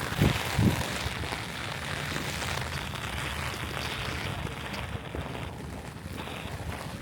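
Steady rain falling on a street, an even hiss, with two or three short low thumps in the first second.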